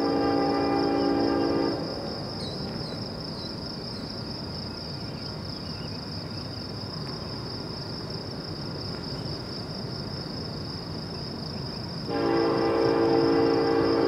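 Diesel freight locomotive's air horn sounding a steady multi-note chord that cuts off about two seconds in, then a low rumble of the approaching train, and the horn sounding again about twelve seconds in. Crickets chirp steadily in the background.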